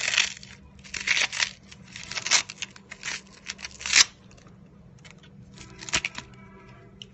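Raw banana stem being peeled and torn apart by hand: a run of crisp rasping tears over the first four seconds, ending in a sharp click, then quieter handling.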